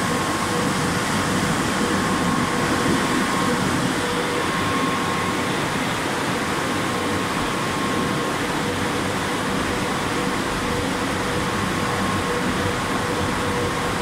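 Drying blowers of a California Rohé C45 rollover car wash running in the drying stage: a steady rush of air with a steady hum.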